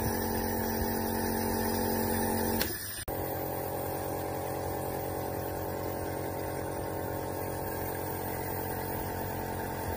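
Compressor nebulizer's motor running with a steady hum while it turns the medicine into mist. About three seconds in the pitch sags and the sound cuts out for a moment, then the same steady hum resumes.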